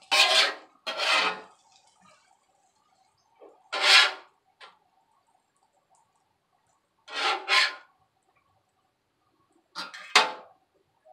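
Metal griddle spatula scraping across the steel flat-top griddle in short strokes, mostly in pairs with pauses between.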